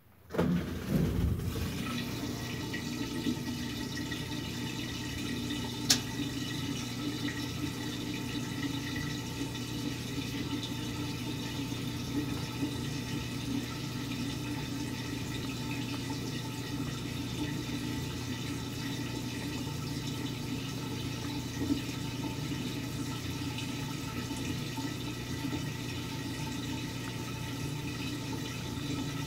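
Brastemp BWT12 top-loading washing machine's drain pump switching on about half a second in and running steadily with a low hum as the soapy wash water drains away. There is a brief click near the start and another near the end.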